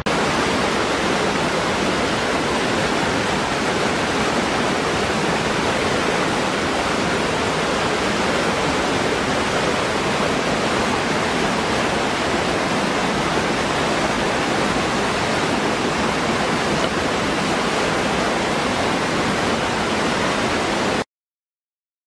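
Small waterfall pouring into a rocky pool: a steady, dense rush of falling and churning water that cuts off suddenly near the end.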